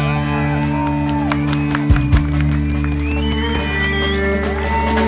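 Live folk-punk band playing loud through the PA, with a fiddle over amplified guitars and bass on long held notes, and a few drum hits.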